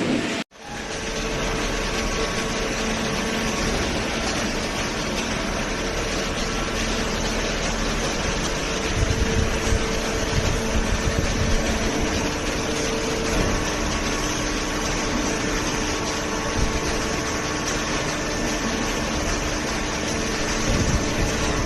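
Hydraulic waste-paper baler running: a steady hum from its hydraulic pump and motor, with a few low knocks in the middle of the stretch and again near the end.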